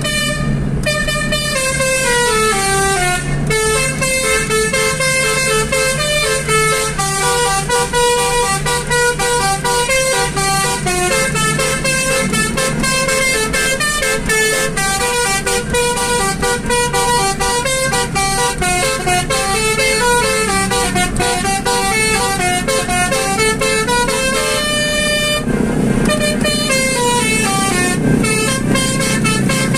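Basuri telolet horn, a bank of tuned air horns on a modified vehicle, playing a fast melody whose notes step down and back up in runs, with a short break about 25 seconds in. A steady low hum runs underneath.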